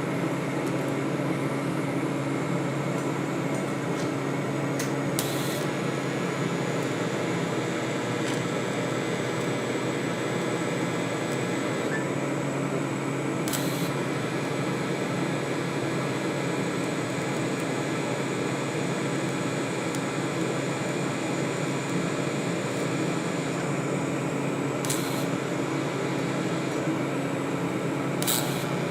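TIG welding arc running steadily, building up a cast steel part with steel filler: an even buzzing hum with hiss. A few brief sharp ticks come through now and then.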